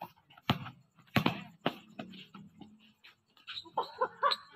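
A basketball bouncing on a concrete court: a few sharp thuds about half a second apart, then lighter knocks, with players' voices calling out near the end.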